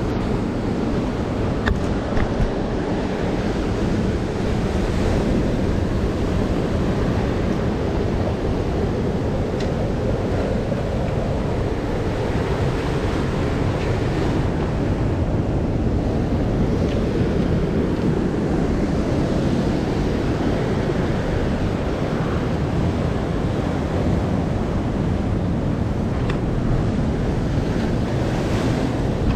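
Sea surf washing over a rocky shore, mixed with wind rumbling on the microphone: a steady, dense noise with a few faint clicks.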